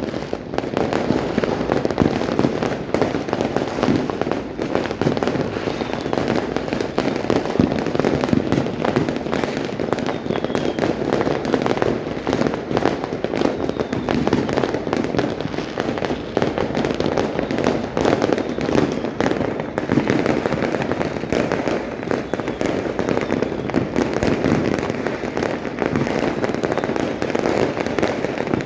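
Dense, continuous barrage of firecrackers and fireworks going off, many overlapping bangs and crackles with no pause between them.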